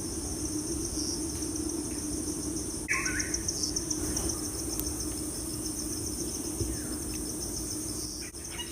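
Insects chirping steadily in the background in a fast, even trill, over a low steady hum, with a single short bird chirp about three seconds in.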